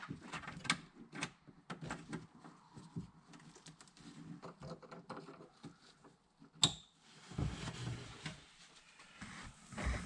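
Small clicks and taps of hands working inside a car door to reconnect the window motor's wiring connector, with one sharp click about six and a half seconds in, followed by a low rumble of handling.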